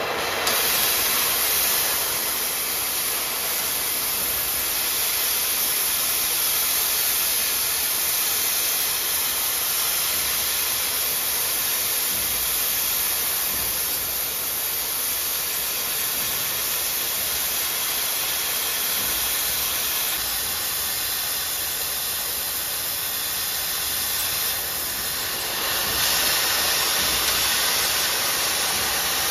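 Oxy-fuel cutting torch on a profile-cutting machine hissing steadily as it cuts a 30-degree weld bevel along a steel plate. It gets louder about half a second in and again near the end.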